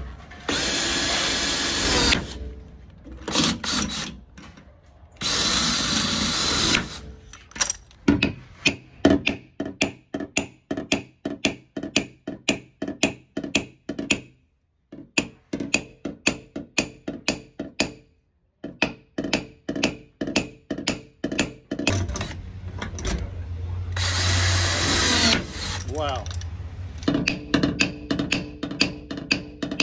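Paintless dent repair on a truck's quarter panel: two steady whirring bursts of about two seconds each, then a long run of quick, sharp taps, two to three a second, as the panel's high spots are tapped down with a knockdown tool and hammer.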